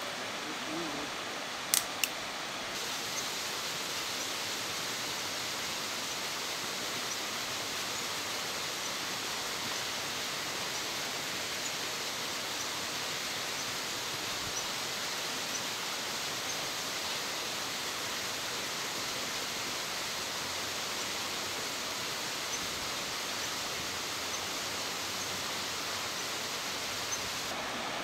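Steady, even rushing of a large waterfall, with two sharp clicks about two seconds in.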